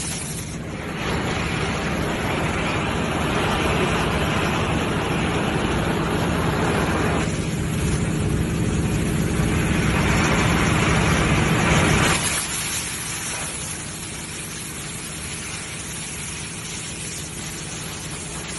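Oxy-fuel cutting torch hissing steadily as its jet cuts through steel angle iron. The hiss drops to a quieter level about two-thirds of the way through.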